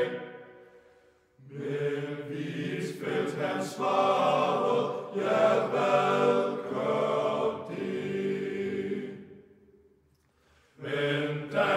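Choir singing a slow, hymn-like phrase of the song, entering about a second in. The phrase fades out near the end, and after a short pause the choir comes in again.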